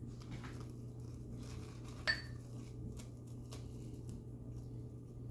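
Stainless-steel safety razor (West Coast Shaving Lithe) scraping lightly through lather and stubble in short faint strokes, with one sharp ringing clink of metal on a hard surface about two seconds in.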